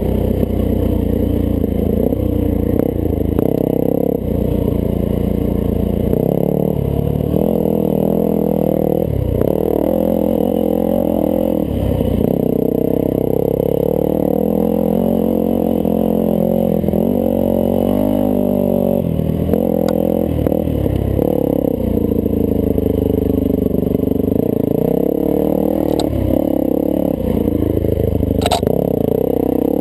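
1998 Yamaha YZ400F's four-stroke single-cylinder engine under way, its pitch rising and falling continually as the throttle is opened and closed, heard muffled from a helmet-mounted camera. A single sharp knock near the end.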